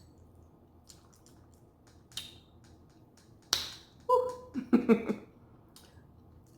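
Light clicks and taps of utensils against tableware, with one sharp click about three and a half seconds in, followed by a second of louder clattering mixed with short pitched sounds.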